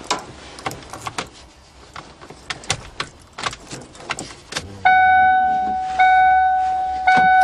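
Car keys jangling and clicking at the ignition, then a car's warning chime sounding, repeating about once a second from about five seconds in, with no engine cranking. The starter fails to turn, which the owner takes for a starter problem.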